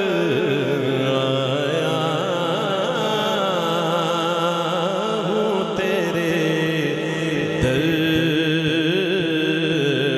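A man sings a Sufi manqabat into a microphone over a PA, drawing out long, wavering melismatic notes.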